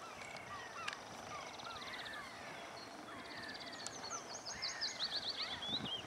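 Several small songbirds singing at once: repeated short down-slurred whistles and fast trills, with a louder, higher song that falls in pitch in a rapid trilled run from about four seconds in.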